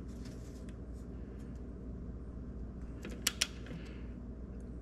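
Two sharp metal clicks close together a little over three seconds in, with a few faint ticks before them, from a torque wrench ratcheting on the nut of the starter solenoid's larger cable stud, over a low steady hum.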